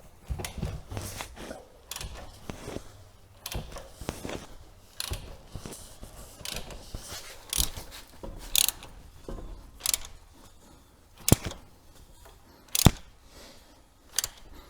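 Crankshaft of a Skoda 1.2 TSI engine being turned by hand with a wrench through nearly two revolutions, turning the new timing chain and camshaft: irregular ratcheting clicks and metal clanks, the two sharpest about eleven and thirteen seconds in.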